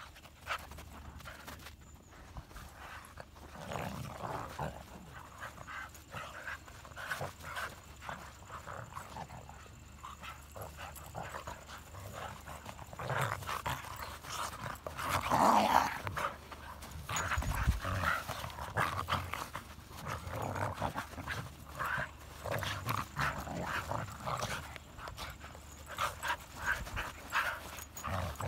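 Hokkaido dogs play-fighting, growling and panting in irregular rough bursts, with the loudest snarl about halfway through.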